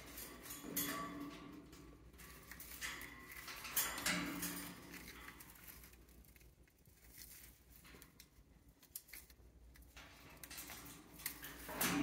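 Rustling and crackling of a hanging shredded-fibre chew toy as a parrot clings to it and picks at it with its beak, with many small clicks and taps; it is busiest about a second and about four seconds in.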